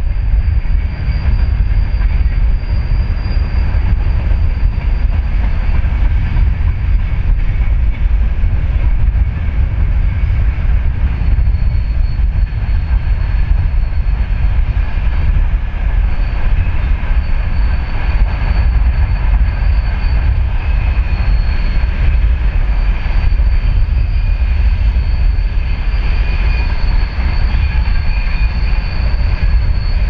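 Freight train wagons rolling past, a heavy steady rumble with a thin steady high whine running over it.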